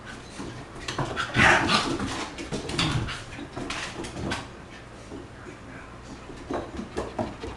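Border Collie making dog noises while play-fighting with a cat, loudest about a second and a half in, with short scuffling knocks.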